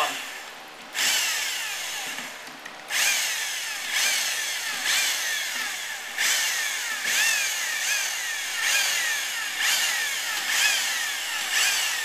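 Corded electric drill running beadlock-ring bolts into an ATV wheel, a couple of threads each. It runs in short repeated bursts, about one a second after the first few seconds. Each burst starts sharply and falls away in pitch and level as the motor slows.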